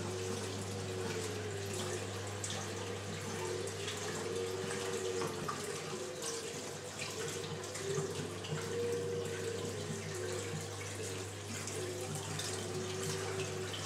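Water running and splashing in a large reef aquarium's circulation system, steady throughout, with a constant low hum underneath.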